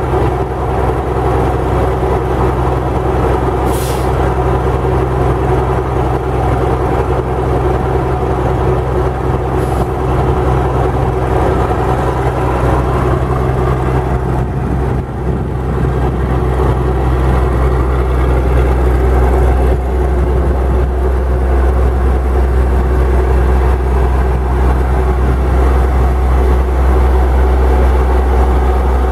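Cummins HR-6-IP six-cylinder diesel engine of an American 7450 lattice boom crane running steadily as the crane works. Its note shifts and grows fuller about halfway through as the upper works swing the boom around. A short hiss of air comes about four seconds in.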